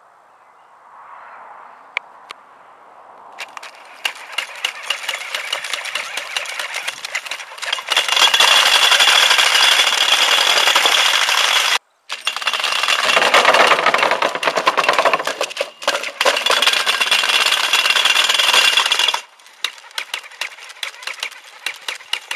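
Cockroach robot running: its small electric gear motors whine and its roller-chain drive rattles, with dense rapid clicking as the spoked wheel-legs turn. The clatter starts quieter, grows loud and busy for much of the time with a couple of abrupt breaks, then drops back to lighter clicking near the end.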